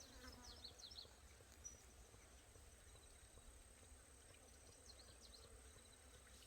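Near silence: a faint steady high insect drone, with a few brief high chirps about half a second in and again around five seconds.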